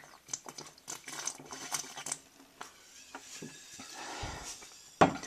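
Someone gulping soda from a glass bottle, with clicking mouth and swallowing sounds. Near the end the glass bottle is set down on a hard surface with one sharp, loud clunk.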